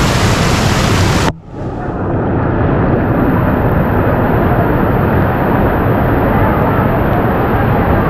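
Loud, steady rush of a waterfall in full monsoon flow. About a second in the sound cuts out abruptly, then comes back over the next second, duller with less hiss.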